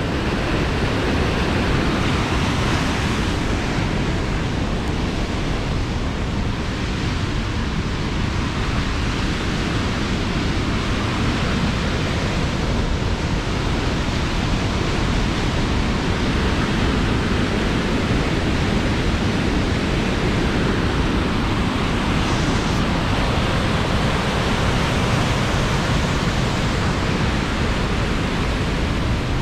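Whitewater of Avalanche Creek rushing through a narrow rock gorge: a steady, loud rush of water that hardly changes.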